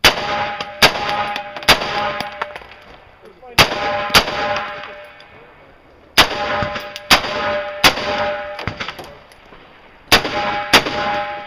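Rifle fire on a practical rifle stage: ten shots in groups of two or three, a couple of seconds between groups. A metallic ring follows several of the groups.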